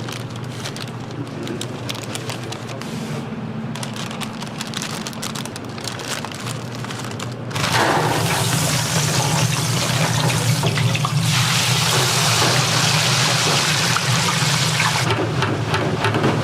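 Deep-fryer oil crackling and popping, then a sudden loud surge of sizzling hiss about halfway through, as when food goes into the hot oil, holding for several seconds over a steady low hum.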